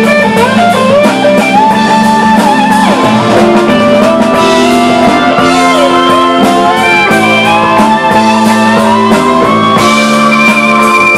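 Electric guitar solo on a Stratocaster-style guitar, with bent notes gliding up and down over the band's drums, building to a long held high note near the end.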